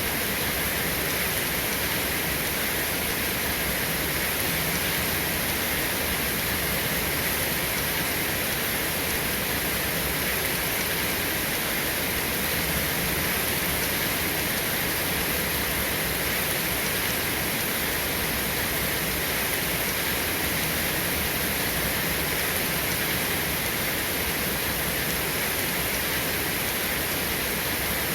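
Steady rain falling, an even hiss that does not rise, fall or break.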